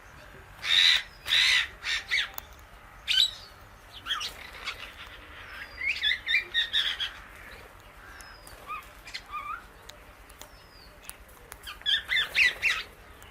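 Indian ringneck and Alexandrine parakeets calling: two loud harsh squawks about a second in, then bursts of rapid chattering notes around the middle and again near the end, with short thin whistles in between.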